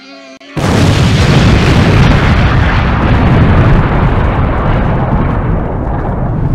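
A huge explosion sound effect: a sudden blast about half a second in, followed by a long, loud roar of noise whose high end slowly dies away.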